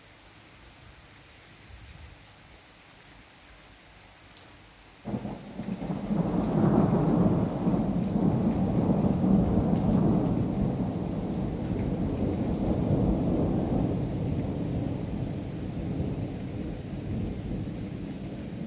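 Thunder: a sudden crack about five seconds in that rolls into a long, low rumble, slowly fading, over steady rain.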